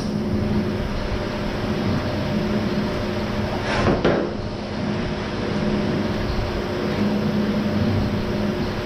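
Steady mechanical hum with a low, even drone, and a brief rushing noise that swells and fades about four seconds in.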